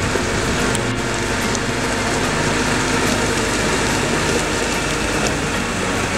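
Steady construction-site machinery noise: an engine running under a loud, even hiss, with a few light clicks.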